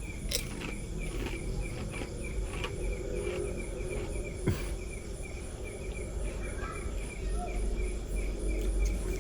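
Night insects, likely crickets, chirping in a steady even rhythm of a few short chirps a second, with a faint steady high whine above them. A single short sharp knock about four and a half seconds in.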